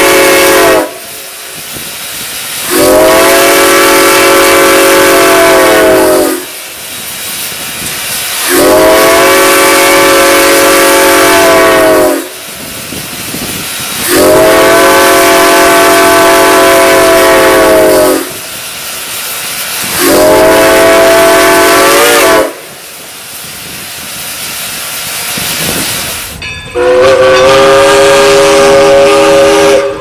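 Southern top-level six-chime steam whistle on Reading Blue Mountain & Northern locomotive 425, blown in four long blasts of about three to four seconds each, the last one shorter, with steam hissing between blasts. About 27 seconds in, a different three-chime whistle, a Kloke, starts sounding.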